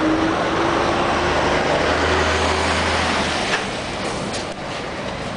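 An articulated lorry driving past close by, its diesel engine giving a low drone with a slowly rising tone over a steady rushing noise. The engine sound cuts out about three and a half seconds in and the noise drops.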